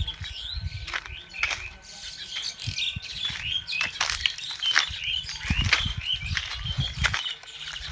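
Forest birds chirping over and over in short, quick calls. Sharp rustling clicks and irregular low thumps run underneath.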